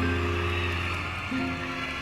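Instrumental music with held chords over a steady bass note: the closing bars of the song's backing track, with no singing.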